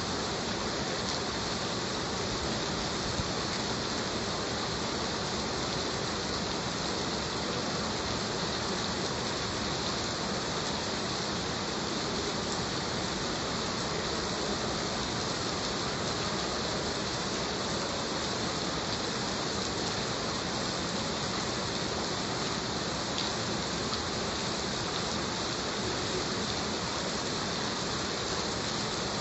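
Heavy rain falling steadily, an even hiss of drops without pauses.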